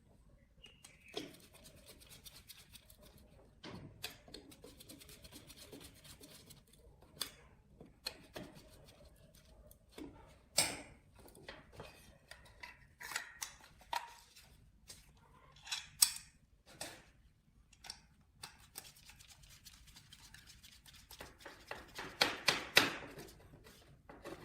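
Irregular clicks, snips and light knocks of hand work on small parts, with a few sharper knocks and a quicker run of them near the end.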